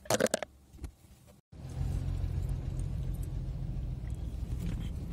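A vehicle engine running with a steady low rumble, starting abruptly about a second and a half in. Before it come a few short knocks.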